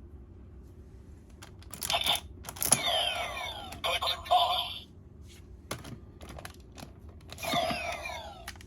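CSM Gatack Zector toy playing electronic sound effects through its speaker: two spells of several tones falling in pitch together, about three and seven and a half seconds in. Hard plastic clicks and snaps of the toy being handled come before and between them.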